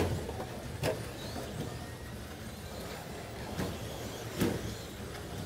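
Electric Traxxas Slash RC short-course trucks running on a carpet track: a steady motor-and-tyre whir with a few sharp knocks, the loudest about four seconds in.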